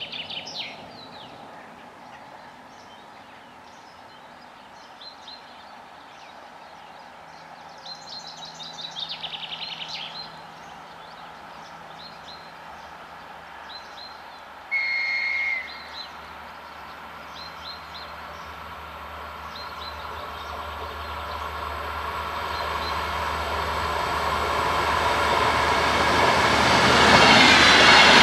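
DR1AC diesel multiple unit approaching: a single horn blast of about a second midway, then the diesel engine hum and wheel-on-rail noise growing steadily louder until the train is passing close by near the end.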